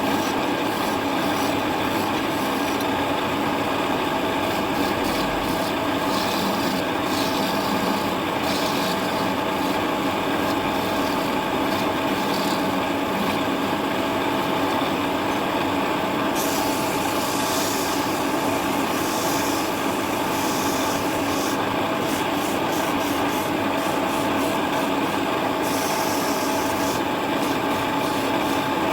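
Wood lathe running steadily with a steady motor hum while a turning tool scrapes and cuts the spinning wood, the hiss of the cut growing brighter in several passes about a third and two thirds of the way through.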